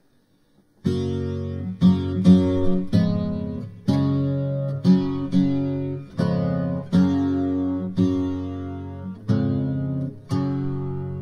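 Background music: an acoustic guitar strummed in a steady rhythm, a chord struck about once a second, starting just under a second in.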